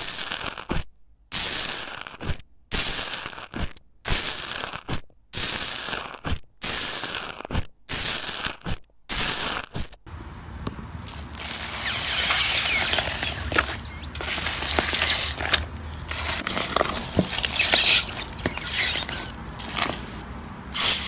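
Bubbly slime crackling and popping as a metal tool is pressed into it, in a run of short bursts with brief silences between them. About halfway through this gives way to longer, continuous crackling and crunching from another slime.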